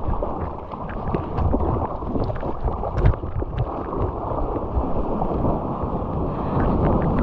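Seawater sloshing and splashing around a surfboard and a GoPro at the waterline, dull and muffled, with scattered small splashes. Near the end a louder, steady rush of moving water sets in as the board gets onto a wave.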